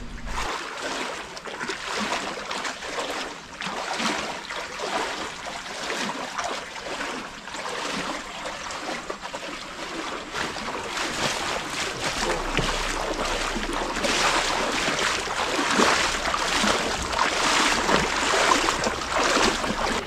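Flowing stream water with irregular splashes of someone wading through it, getting louder in the second half.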